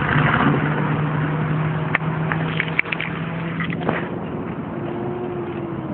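Steady low hum of a car engine running, with a few short clicks near the middle; the hum drops away about four seconds in.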